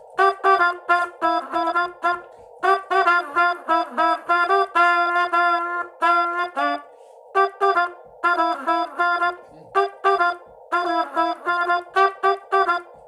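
Trumpet played in a run of short staccato notes mixed with a few longer held ones, pausing briefly twice: dits and dahs of Morse code played into a CWvox voice keyer.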